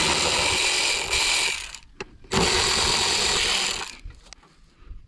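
Cordless ratchet motor running in two bursts while backing out bolts: the first stops a little under two seconds in, the second starts shortly after and stops about a second before the end.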